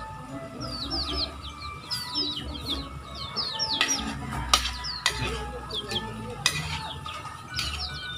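Birds chirping over and over in short, high, falling calls, with a metal spatula knocking and scraping against a large wok several times in the second half.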